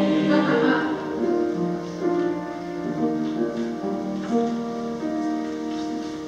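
A choir's held final note ends about a second in, and a piano carries on with slow closing chords that die away.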